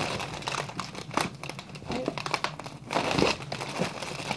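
Foil (Mylar) balloon crinkling in the hands as its neck is held and worked at the mouth: a run of irregular crackles, with a louder rustle about three seconds in.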